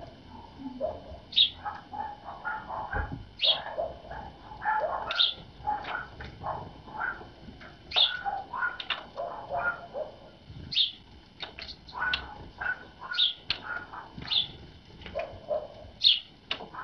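Small songbirds calling: sharp, high notes every second or two over busier, lower chirping.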